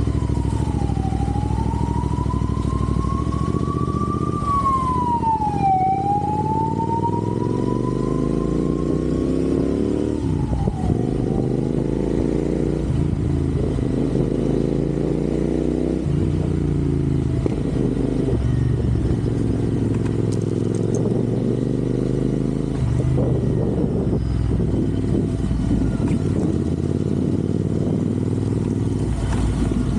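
Royal Enfield Interceptor 650's parallel-twin engine on the move, its pitch climbing again and again as it pulls through the gears. For about the first ten seconds a siren wails up and down over it.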